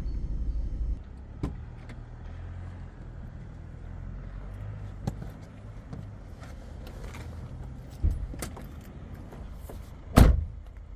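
Handling noises from a car's door and cabin: a low hum that cuts off about a second in, then scattered light clicks and knocks, and one loud, heavy thud near the end.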